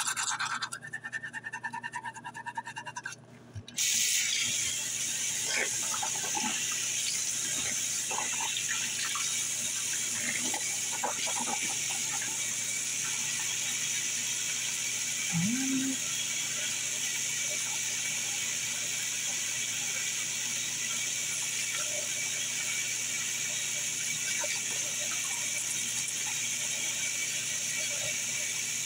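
Toothbrush scrubbing teeth through toothpaste foam, over a steady hiss that starts suddenly about four seconds in. A brief rising voice sound comes about halfway through.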